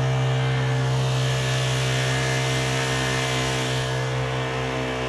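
Honda GX35 four-stroke single-cylinder engine on a small kayak outboard running steadily at about 80% throttle, pushing the loaded canoe. Heard close up on a phone microphone, somewhat distorted.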